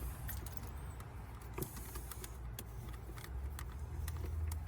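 Scattered light clicks and taps of small hard items being handled at a workbench, over a low steady hum that grows a little stronger about three seconds in.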